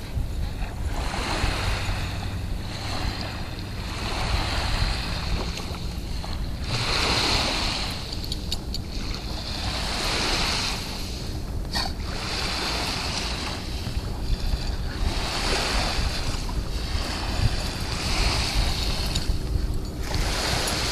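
Wind buffeting the microphone with a steady low rumble, over a hiss of small lake waves washing onto the sandy shore that swells and fades every second or two. A single sharp click about twelve seconds in.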